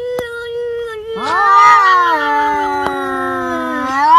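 Two cats yowling at each other in a face-off: one long, low, drawn-out yowl, joined about a second in by a second, louder, wailing yowl. Both slowly sag in pitch and swell again near the end. These are the threat yowls of a territorial standoff between cats.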